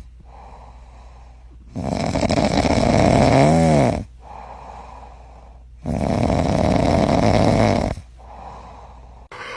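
Loud snoring: two long snores about four seconds apart, with quieter breathing between them. Near the end of the first snore a short whistling squeak rises and falls in pitch.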